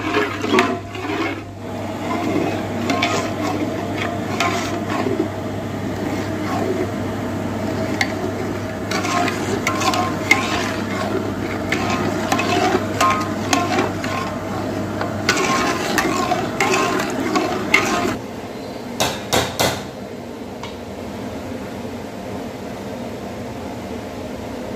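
Long steel ladle stirring watery curry gravy in a large aluminium pot, sloshing liquid with repeated clinks and scrapes of metal on metal. The stirring stops about 18 seconds in, followed by a few sharp clinks and then a steady background hum.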